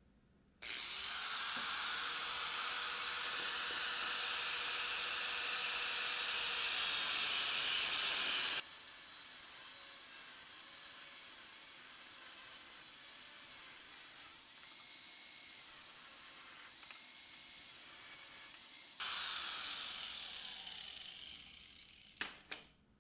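Angle grinder with a thin cutoff wheel cutting down the nose housing of a GM starter motor: a steady high grinding whine that starts suddenly about half a second in. The grinder winds down over the last few seconds, followed by a couple of short knocks.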